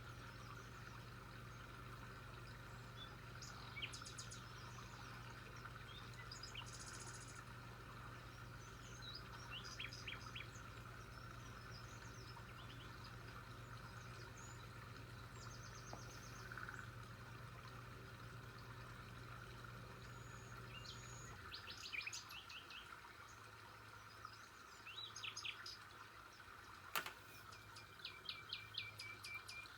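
Faint birds chirping in short scattered calls and quick trills, over a low steady hum that cuts out about two-thirds of the way through. A single sharp click near the end.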